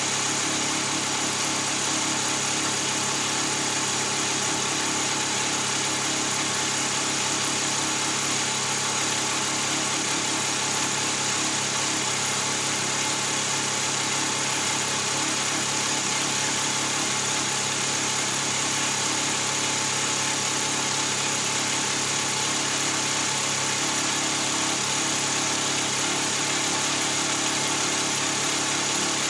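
Honda CB400D Super Hawk III's air-cooled parallel-twin engine idling steadily through a nearly straight-piped exhaust.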